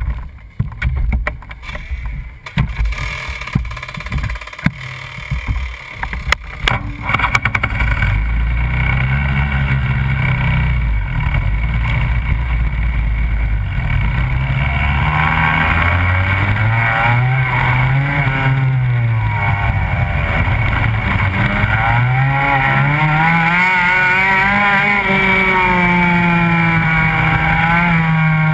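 Go-kart engine heard from on board: irregular knocks and bangs for about the first seven seconds, then a steady run with the pitch rising and falling again and again as the kart accelerates and slows around the track.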